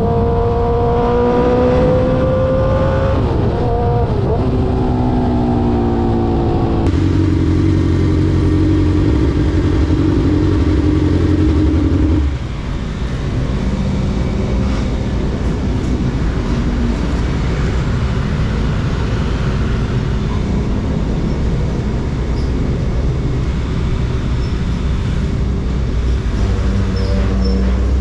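Suzuki GSX-R 600 K5 inline-four sport bike with an SC Project exhaust accelerating hard, engine pitch rising, dipping briefly at a quick upshift, then rising again and holding. About 12 seconds in the throttle closes and the sound falls to a lower, steadier rumble of engine and road noise.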